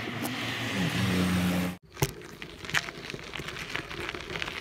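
A vehicle's engine hum rises slightly and then holds steady, cut off abruptly about two seconds in. It gives way to irregular crunching and crackling of travel over a gravel track.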